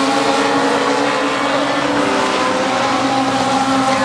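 A field of Legends race cars running hard around a short oval, their four-cylinder Yamaha motorcycle engines blending into one steady, overlapping drone of several engine notes.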